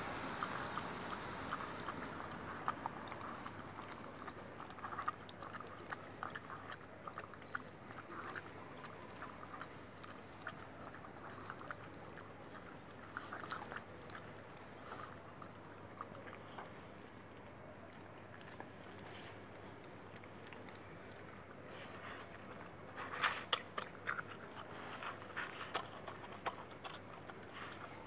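A dog eating rice from a plate: faint, irregular chewing and mouthing clicks, with a louder patch of them late on.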